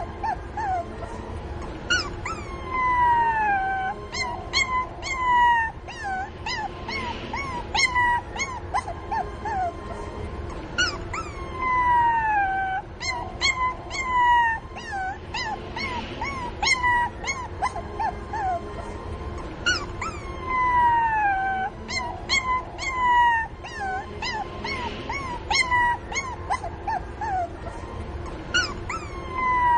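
A puppy whimpering and crying for its mother: many short, high-pitched cries and yelps, with a long falling whine about every eight seconds.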